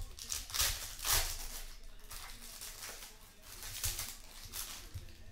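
Foil wrapper of a Panini Contenders hockey card pack crinkling and tearing as it is ripped open by hand, a string of irregular crackly rustles.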